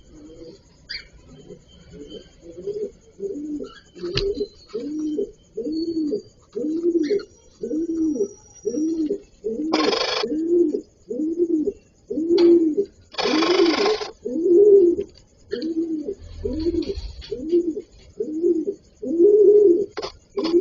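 A bird cooing in a steady rhythm, about two low coos a second, dove-like. Two harsh noisy bursts cut in, about ten and thirteen seconds in, the second one longer.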